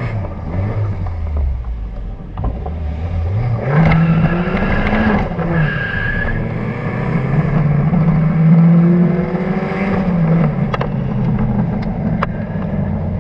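Toyota TE71's swapped-in 4A-GE 16-valve 1.6-litre twin-cam four-cylinder running under way through a full stainless-steel exhaust. The note rises as the car accelerates, drops sharply about five seconds in with a gear change, holds steady, then falls again near ten seconds.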